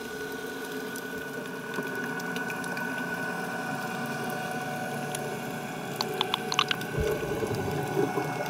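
Diver propulsion scooter's electric motor running underwater, a steady hum with a thin whine over the rush of water. A quick run of clicks comes about six seconds in and a low thump near the end.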